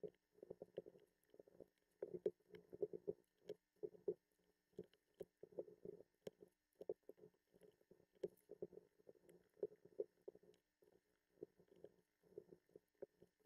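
Faint, quick, irregular clicks and rattles of LEGO Technic plastic pieces being picked up, handled and pressed together, sped up.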